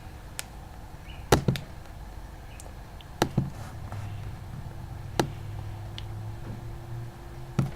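A handful of sharp clicks and knocks, a second or two apart, from a lamp being moved and adjusted, over a faint steady low hum.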